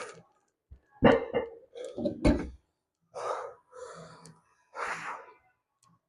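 A man breathing out hard in several short, forceful bursts, with two heavy thuds a second or two in.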